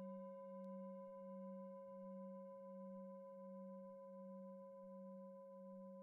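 Metal singing bowl ringing on after a strike, a low hum with several higher overtones, slowly fading; the low tone wavers in a slow, even pulse.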